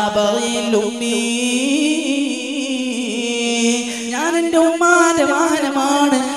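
A young man's voice chanting in a slow, melodic, drawn-out tone, amplified through a microphone, with one long held note starting about a second in and lasting over two seconds.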